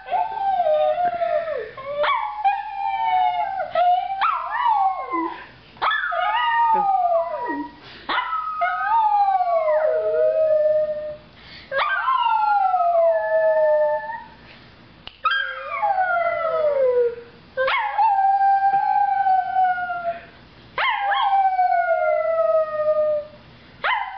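A small terrier howling in a string of long notes, each starting high and sliding down in pitch, about one every two seconds, with a girl howling along with it.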